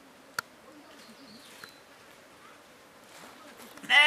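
Quiet outdoor ambience with a faint wavering hum, then near the end a goat starts a loud, drawn-out bleat.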